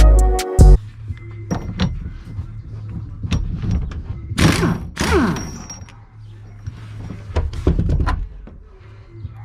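Scattered clicks and knocks of hand work on a car's steering column, over a low steady hum. A short rasping burst comes about halfway through.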